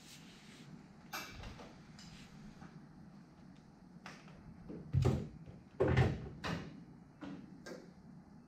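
Scattered clicks and knocks of a hand tool working a fuel-line fitting in a car's engine bay, metal on metal; the two loudest knocks, each with a dull thump, come about a second apart just past the middle.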